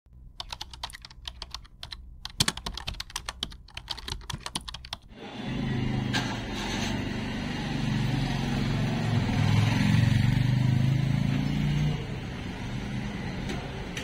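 A fast, uneven run of sharp clicks for about five seconds, then a louder steady low rumble that eases down about two seconds before the end.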